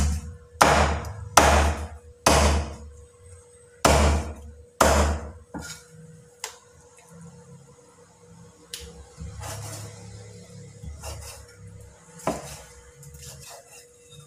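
Meat cleaver chopping chicken pieces on a thick round wooden chopping board: six heavy chops in the first five seconds, then a few lighter cuts and knocks.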